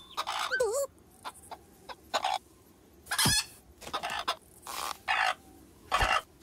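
Cartoon hen clucking in a string of short separate calls, with a brief warbling squeak just before a second in and a sharp thump near the end.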